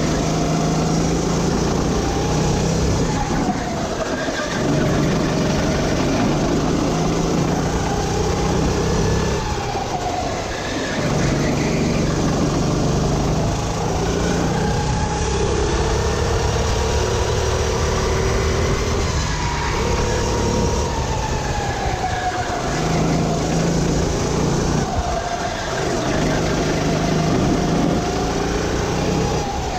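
Sodi RT8 rental kart's engine at racing speed, revving up along each straight and dropping away into each corner, about half a dozen times.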